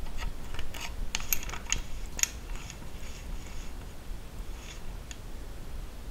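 Metal clicking and ticking from a hand-cranked tube flaring tool as its handle is turned to push out a flare on 1/4-inch hydraulic tubing. The clicks are irregular, thick in the first two seconds or so, then fewer and fainter.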